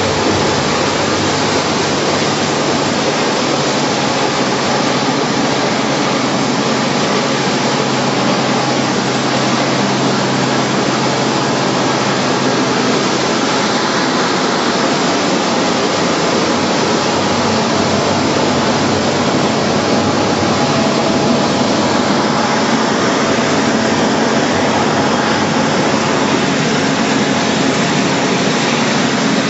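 PP/PE film and woven-bag crushing and washing line running: a loud, steady machinery noise with a low motor hum that shifts in pitch about halfway through.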